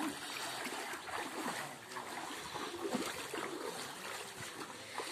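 Shallow floodwater splashing and sloshing, stirred by wading feet and the wheels of a van moving through it, with irregular small splashes.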